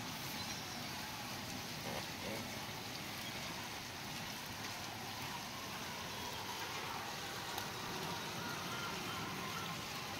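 Steady rain falling on a wet street, an even hiss of drops.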